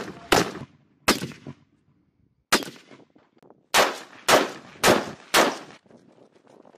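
Rifle fire on a range: about eight single shots, each a sharp crack with a short echo. The first few come irregularly, and the last four follow one another about half a second apart.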